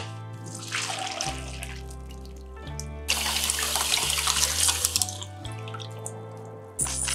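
Kitchen tap running into a stainless steel sink, splashing over boiled taro in a mesh strainer for about two seconds in the middle, after a brief splash of water about a second in; soft background music plays throughout.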